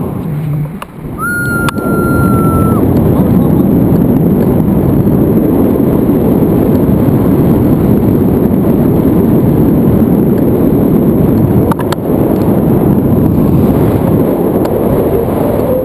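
Loud, steady wind rushing over an action camera's microphone from the airflow of a paraglider in flight. A short steady high beep sounds about a second in.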